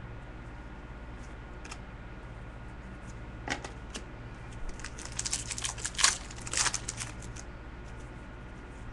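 Trading cards being handled and sorted, giving light clicks and rustles: a few single clicks, then a quick run of them a little past halfway. A steady low hum lies underneath.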